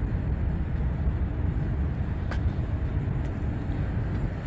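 Steady low rumble of distant road and airport traffic heard from a high rooftop, with two faint clicks about two and three seconds in.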